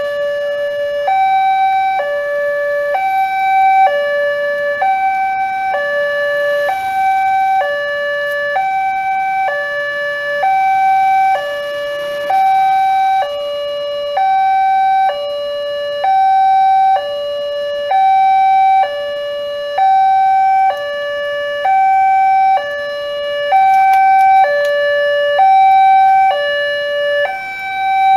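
Railway level-crossing warning alarm sounding: an electronic two-tone alarm alternating between a low and a high tone about once a second. It switches on suddenly and loudly.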